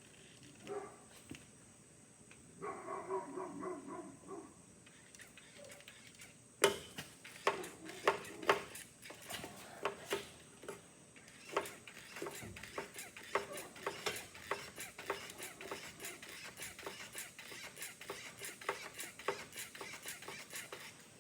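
A dog whining briefly a few seconds in. Then, from about six seconds in, a long run of irregular sharp clicks and knocks, roughly one or two a second, from hand work on the hay mower.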